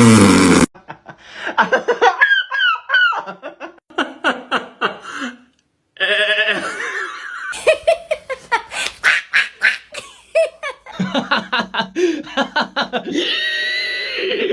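Laughter in quick, repeated bursts, broken by a short pause about five and a half seconds in.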